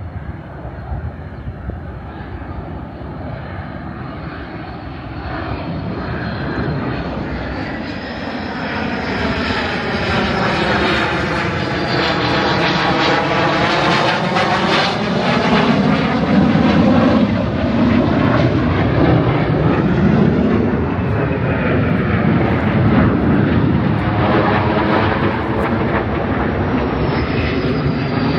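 Fighter jet flying overhead. Its jet noise grows louder over the first several seconds and stays loud, with a sweeping, phasing whoosh as it passes about halfway through.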